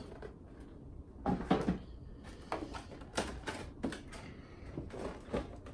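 Rigid clear plastic packaging tray being handled and set down on a tabletop: a string of crackles, clicks and knocks, the loudest cluster about one and a half seconds in.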